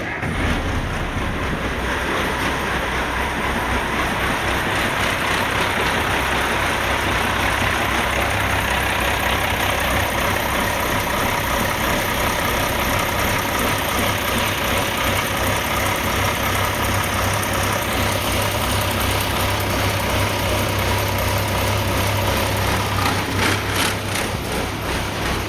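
M35A2 deuce and a half's multifuel inline-six diesel running at idle, its hydraulic-head injection pump just rebuilt after a no-start. The idle surges a little, which the owner puts down to air in the fuel line.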